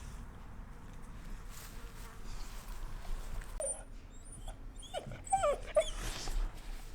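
Seven-week-old German Wirehaired Pointer puppies whining: a quick string of short, high, wavering whimpers about halfway through, over a low background hum.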